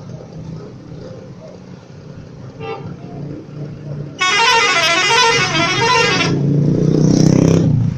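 Indonesian intercity bus's 'telolet' multi-tone musical horn playing its warbling tune for about two seconds, about four seconds in, followed by a lower, rougher sound for about a second and a half that stops suddenly near the end.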